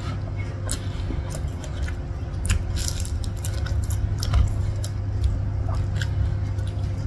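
Close-up eating sounds: chewing, with wet squishing and small clicks as rice and fish are picked up and mixed by hand. A steady low hum runs underneath.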